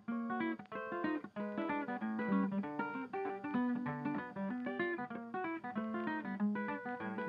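Instrumental background music of quickly plucked string notes.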